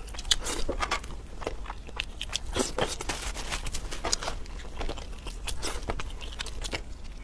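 Close-miked eating sounds: cooked shell-on langoustines being cracked and pulled apart by hand, with biting and chewing, as a run of irregular sharp clicks and crackles.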